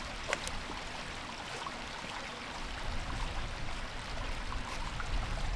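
Running water: a steady rushing with a few faint ticks.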